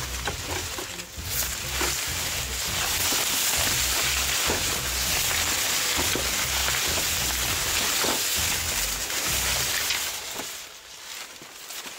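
Maize leaves and stalks rustling and scraping against a person and the camera while pushing through a standing cornfield, a steady crackling swish with dull knocks of handling. It drops away briefly near the end.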